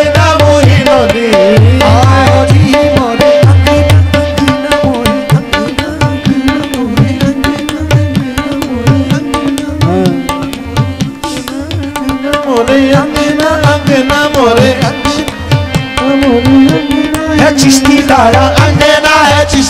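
Qawwali music: a harmonium holds a drone and melody over a tabla rhythm, with wordless sung runs weaving above. The tabla's deep bass strokes are strongest in the first few seconds and again near the end.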